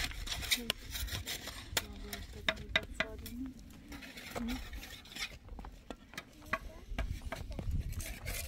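Building work: concrete blocks being set and pressed onto mortar, with gritty scraping and scattered light knocks of block on block.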